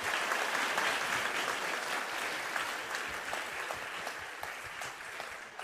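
Audience applause, many hands clapping steadily and slowly dying down toward the end.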